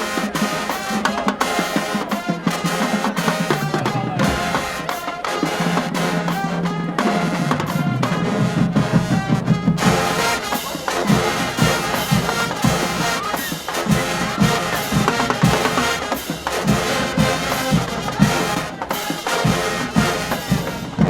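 HBCU marching band playing a brass and drumline tune, with trumpets and trombones over a steady beat of drums.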